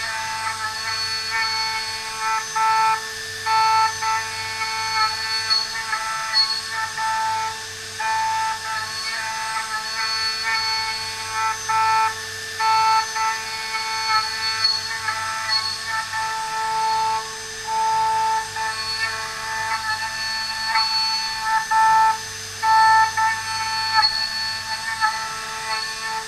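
Gantry milling machine cutting tool steel: the spindle and end mill give a steady high-pitched whine with several overtones, holding one pitch but breaking off and coming back every second or two.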